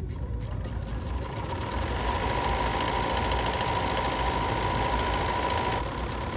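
Bernina 480 computerized sewing machine running steadily as it sews a 9mm-wide decorative tulip stitch, with a steady motor whine; the sound gets a little louder about two seconds in and eases off slightly near the end.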